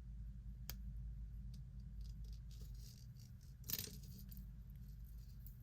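Faint, scattered light clicks and clinks of small pieces of costume jewelry, such as earrings, being handled, with one louder clink a little before the middle.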